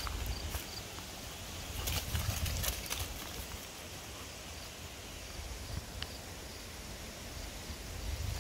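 Footsteps crunching on dry leaves and dirt, with a low rumble on the microphone; the crunching is busiest about two to three seconds in and again near the end.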